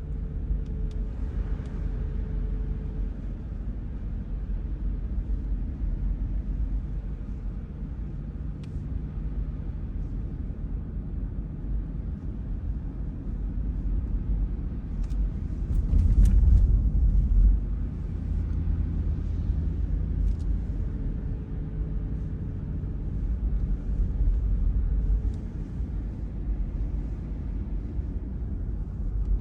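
Car driving, heard from inside the cabin: a steady low rumble of engine and tyres on the road, swelling louder for a moment a little past halfway.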